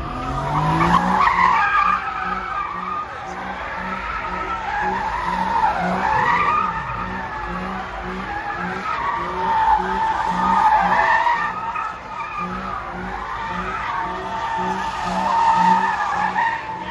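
Car spinning donuts: the engine revs up at the start, then the tires squeal without let-up, the squeal wavering up and down in pitch over a low engine throb that pulses regularly.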